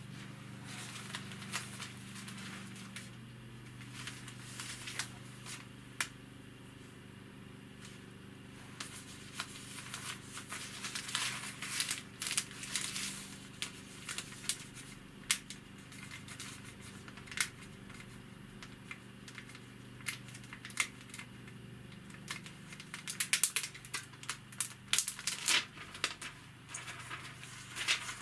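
Product packaging being handled: intermittent crinkling and rustling with sharp clicks and taps, busiest about ten seconds in and again near the end, over a steady low hum.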